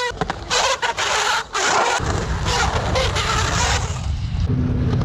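Skateboard wheels on concrete: a scraping, hissing slide with short breaks over the first two seconds, then a steady low rolling rumble from about two seconds in.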